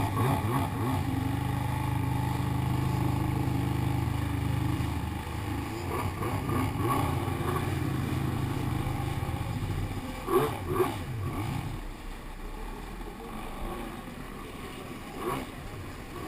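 Stand-up jet ski's engine running steadily at speed with water splashing around the hull, then easing off about twelve seconds in as the ski slows down.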